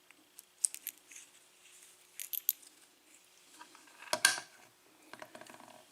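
Light metallic clicks and clinks from a Schlage six-pin cylinder lock as its plug is slid out of the housing, a few scattered clicks with the loudest about four seconds in.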